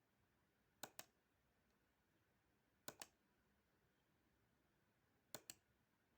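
Three double-clicks of a computer's click button, each a quick pair of sharp clicks, spaced about two seconds apart.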